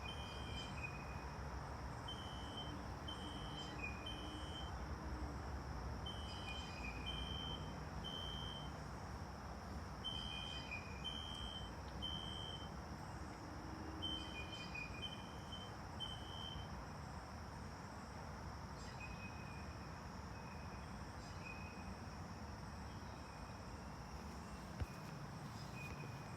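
Recorded System Sensor SpectrAlert Classic fire-alarm horn played from a tablet, sounding faintly in groups of three beeps (the temporal-three evacuation pattern) that repeat about every four seconds. It stops about two-thirds of the way through as the five-minute alarm timer runs out, leaving only faint outdoor background noise.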